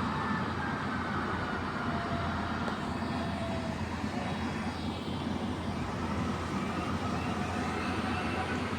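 Excavator's diesel engine running steadily, with faint whining tones that drift slightly in pitch.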